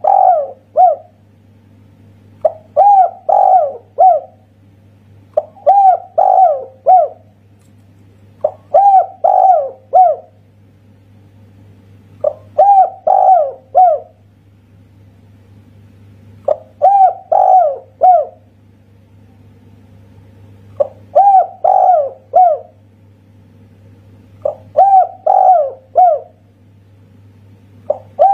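Spotted dove cooing in the single-'kuk' call style: a short phrase of three or four notes, repeated about eight times at intervals of three to four seconds. A low steady hum runs underneath.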